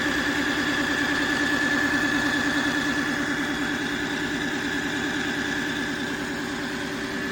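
Tineco iFLOOR 3 Breeze wet-dry vacuum mop running its self-cleaning cycle at the brush-roller cleaning stage: suction motor and spinning brush roller giving a steady hum with a high whine and a fast low flutter.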